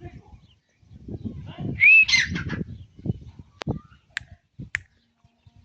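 A bird gives one loud call, rising then falling in pitch, about two seconds in, over low rumbling; three sharp clicks follow.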